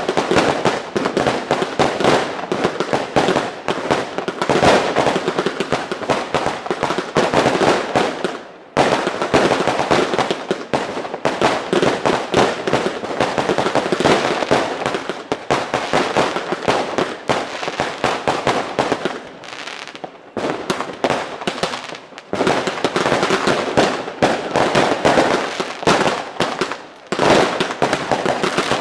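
New Year's Eve fireworks and firecrackers going off in a dense, near-continuous barrage of loud bangs and cracks, with a few brief lulls.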